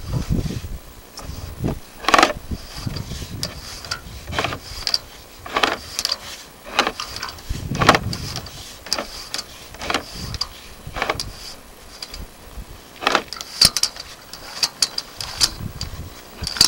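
Irregular knocks and scraping clicks, roughly one a second, from a sewer inspection camera's push cable being fed down a drain vent pipe.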